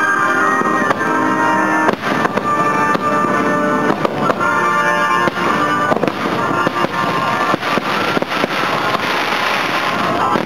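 Fireworks bursting in rapid succession with crackling, over music with sustained tones; the crackling thickens near the end.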